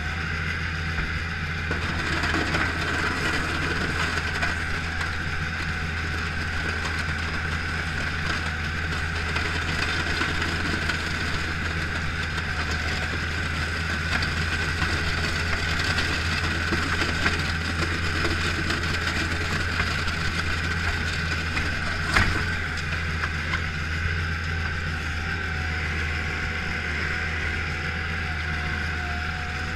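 Bobcat skid-steer loader's engine running steadily while it pushes snow with a plow blade, heard from inside the cab. A single sharp knock about two-thirds of the way through.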